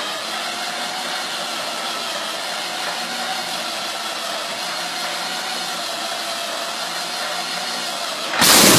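V12 engine running steadily: an even, hissing whine with a few held tones that drift slightly in pitch. Near the end it suddenly gets much louder and fuller.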